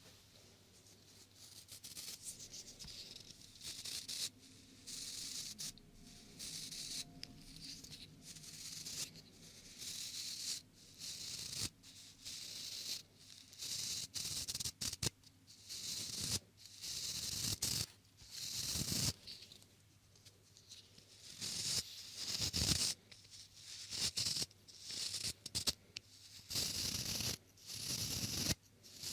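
Close-up rubbing and brushing strokes right on the microphone, irregular and scratchy, one or two a second, with the occasional soft thud of contact.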